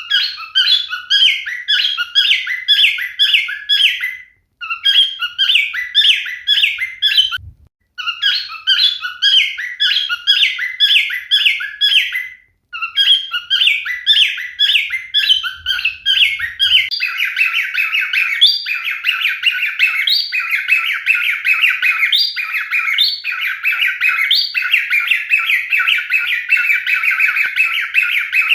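Male cockatiel singing: quick runs of repeated whistled notes in phrases broken by short gaps. From about two-thirds of the way in, the song turns into a denser, unbroken warbling chatter with a short rising note about once a second.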